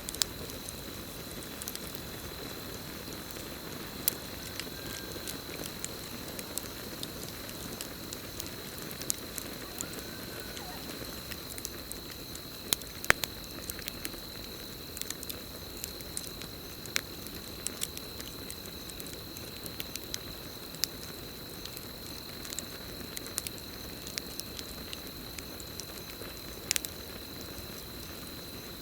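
Campfire burning, with a low steady rush and irregular crackles and sharp pops, the loudest about halfway through and again near the end. A steady high cricket trill runs under it.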